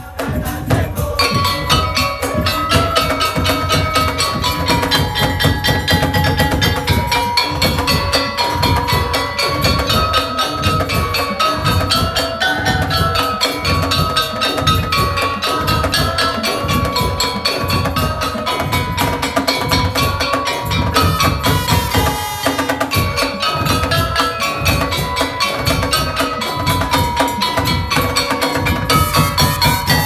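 Madurese daul (tong-tong) ensemble playing: large barrel drums keep a steady beat under a ringing melody on mallet-struck instruments.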